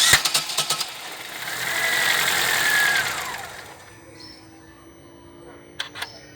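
Chevrolet Celta VHCE car engine bursting into life with a rapid rattling knock, then a rev that rises with a whine and falls back, settling to a quiet steady run. The rattle is the engine noise the owner cannot identify.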